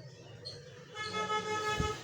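A single vehicle horn toot, one steady flat tone just under a second long, starting about halfway in, over a constant low background hum.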